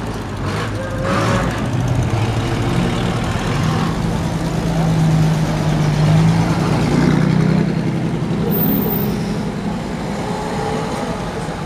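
The engine of a 1950s American saloon pulling away and driving slowly past close by. It hums steadily, loudest about halfway through, then fades as the car moves off.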